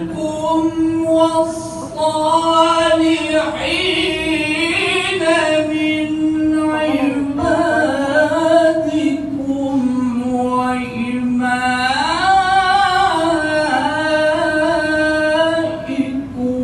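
A solo voice singing long, drawn-out melodic phrases with winding ornaments on the held notes, breaking off briefly between phrases.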